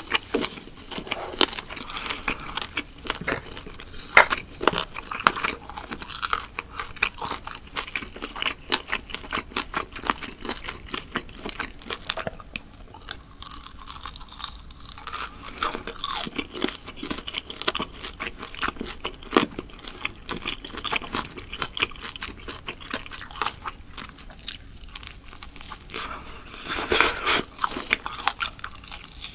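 Close-miked biting and chewing of grilled meat skewers: many small, irregular wet clicks of mouth and food, with a louder, denser spell of bites near the end.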